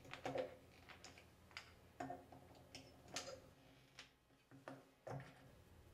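Phillips screwdriver tightening a screw into a chrome-plated Moen Chateau shower escutcheon plate: faint metallic clicks, about two a second, as the screwdriver is turned.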